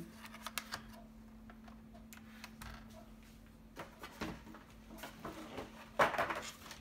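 Plastic clicks, taps and a handling clatter from a Logitech G910 mechanical keyboard and its detachable palm rest being fitted and moved, with the loudest clatter about six seconds in. A faint steady hum runs underneath.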